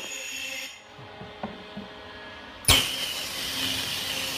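Ultrasonic cell disruptor's probe sonicating liquid in a glass beaker, pulsing on and off on a 2-second-on, 2-second-off setting. A high-pitched hiss with whistling tones stops after under a second. After a two-second pause it starts again sharply and runs on.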